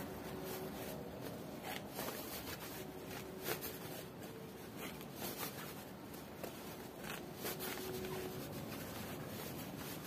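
Fabric rustling with soft, irregular scrapes as skirt boning is pushed by hand through a stitched fabric casing, the cloth gathering up along it.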